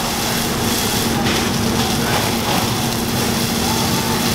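Steady hiss of a fire hose spraying water onto a burned-out car, over the steady hum of an engine running.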